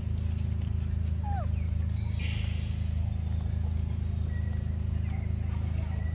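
A monkey gives one short squeak that falls in pitch, a little over a second in, over a steady low hum.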